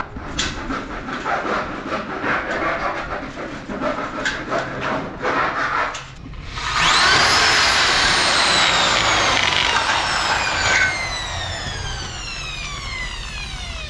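An aluminum screen door frame is handled against a door jamb, with rubbing, scraping and scattered clicks. About six seconds in, a corded electric drill starts with a rising whine. It then runs steadily, its pitch slowly sinking as it drills into the aluminum frame.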